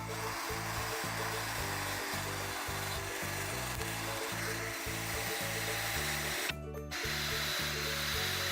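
Power tool scouring rust off a cast iron skillet: a steady abrasive rasp that stops briefly about six and a half seconds in and then starts again, over background music with a steady beat.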